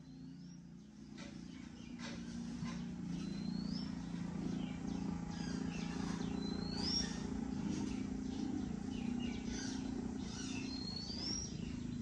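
A bird's short, high rising whistle, repeated about every three to four seconds, over a steady low hum. Scattered light rustles and clicks run alongside, getting louder about two seconds in.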